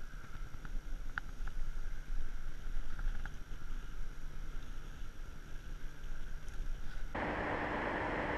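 Wind rumbling on the microphone, with a few light clicks as forceps work the lure's treble hooks out of a pike's mouth. About seven seconds in it cuts to a steadier, louder hiss of wind.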